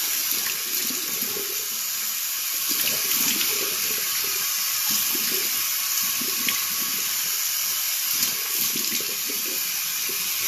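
Tap running steadily into a sink, with irregular splashing as water is scooped up by hand onto the face to rinse off facial cleanser.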